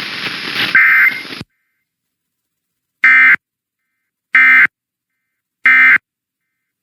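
Hissy off-air radio audio cuts off, and after a short silence come three identical short data-tone bursts about 1.3 s apart. These are the Emergency Alert System end-of-message (NNNN) signal, sent as two-tone digital data bursts, that closes the monthly test.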